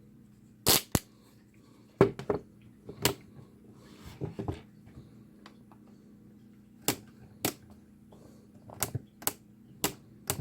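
Scattered sharp plastic clicks and knocks, about a dozen at uneven intervals, from handling a battery-powered LED worklight.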